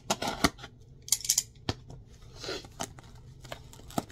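Cardboard shipping box being cut and pried open by hand with a box cutter: a string of sharp clicks and scrapes of blade and cardboard, with a longer rasping scrape about two and a half seconds in.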